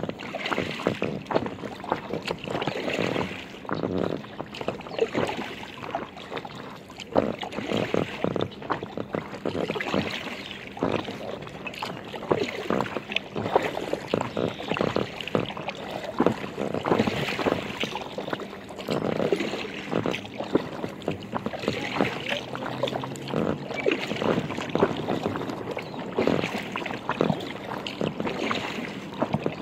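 Paddle strokes and water splashing and lapping against the hull of an Aqua Marina inflatable kayak, in an uneven rhythm of splashes about every second.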